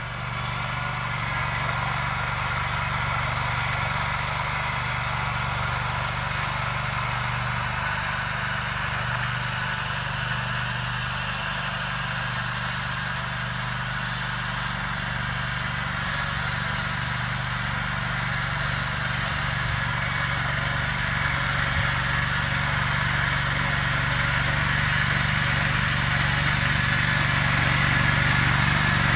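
Köppl Gekko single-axle walk-behind carrier running steadily under load, mowing grass with its portal sickle-bar mower. The sound grows gradually louder in the last third.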